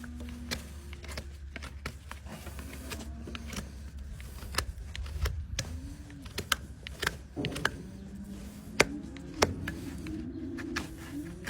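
Horse hoof being cleaned and trimmed with hand tools: irregular sharp clicks and short scrapes as the tools work the hoof, over a steady low hum.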